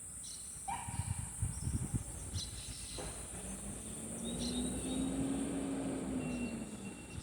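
Steady high-pitched insect chorus, with a few short bird chirps over it. About three seconds in, a low droning hum swells and then fades over roughly four seconds.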